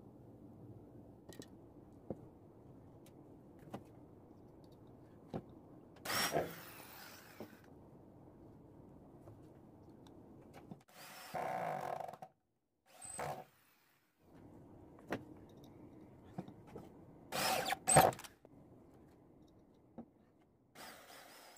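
Cordless drill driving self-drilling screws into a board in five short runs of the motor, with small handling clicks between them. The run near the end is the loudest.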